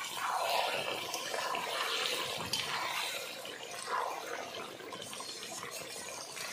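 Chicken and potato curry sizzling and bubbling in a pot while it is stirred with a spoon, as the added water cooks off.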